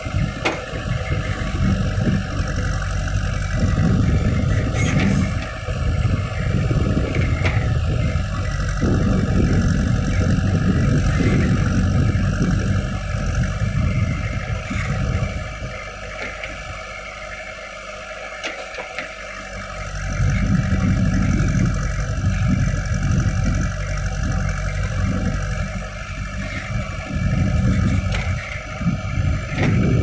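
JCB 3DX backhoe loader's diesel engine working under load as the backhoe digs, rising and falling with the hydraulic work and easing off for a few seconds just past the middle.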